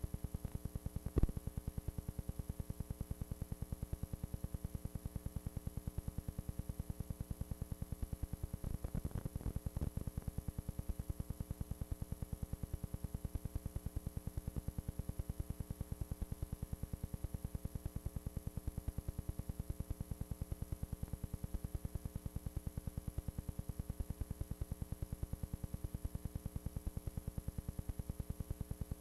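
Steady electrical hum and buzz with a rapid, even pulsing, unchanged throughout: the noise on an old analog videotape's audio track. A single sharp click about a second in.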